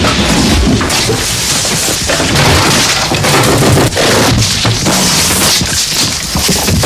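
Experimental electroacoustic noise music made from amplified objects, contact microphones, tape and no-input mixing-board feedback: a loud, dense wall of noise with a deep low rumble, thick with rapid clicks and crashing impacts.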